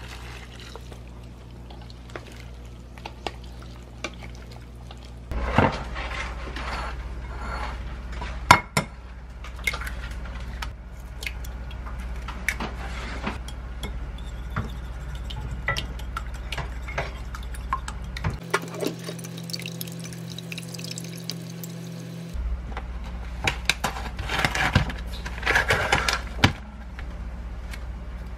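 Kitchen prep sounds: hot soy-sauce brine poured from a pot over chopped vegetables in a stainless steel bowl, then a wire whisk beating eggs in a ceramic bowl, with scattered clinks and knocks of utensils and dishes over a steady low hum. A dense run of quick clicks comes near the end.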